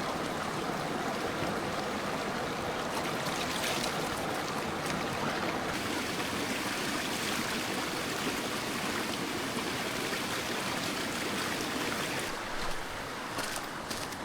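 Clear mountain stream of icy snowmelt running steadily over stones close by, a continuous rushing hiss of water.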